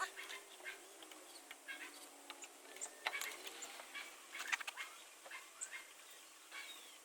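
Faint, scattered short bird calls and clucks, like backyard fowl, with a few small clicks.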